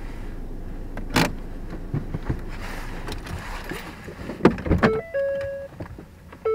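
Inside a parked car: a sharp click about a second in, then a cluster of clicks and knocks. The car's electronic warning chime then starts, a short note stepping into a held one, repeating about every second and a half.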